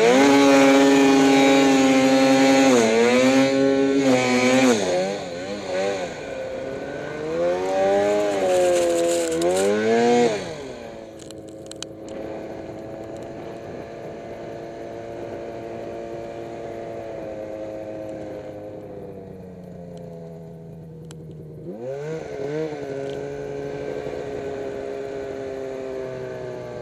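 Turbocharged Arctic Cat M8 snowmobile's two-stroke engine revving hard, its pitch climbing and falling several times through the first ten seconds, then dropping to a quieter, steadier run at lower throttle, with one short rev-up about three-quarters of the way through.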